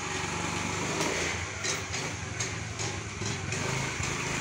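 Honda Activa scooter's small petrol engine running, idling and then pulling away, the sound lifting slightly about a second in.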